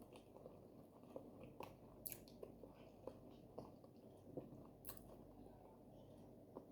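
Quiet close-miked chewing of soft, sticky oat fufu with okra soup: wet mouth and lip smacks, with two sharper clicks about two and five seconds in.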